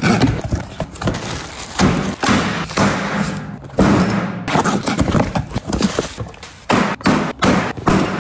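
A cardboard shipping box and packaged tools being set down and handled on a work surface: a quick string of thumps and taps.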